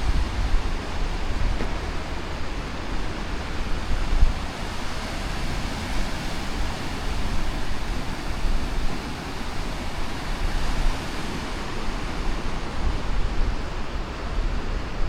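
Mediterranean sea waves washing steadily on the shore, with breeze buffeting the microphone in uneven low rumbling gusts.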